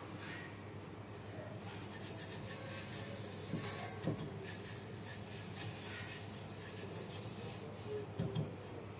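Soft kitchen handling sounds: a silicone spatula scooping butter from a plastic tub and spreading it in a nonstick frying pan. A few light knocks come through, two of them close together near the end, over a steady low hum.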